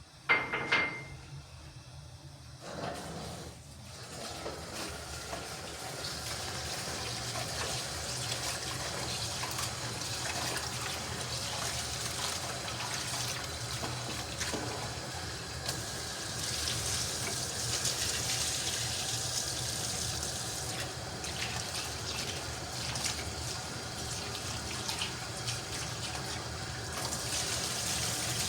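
A sharp metallic clink right at the start, then water running steadily.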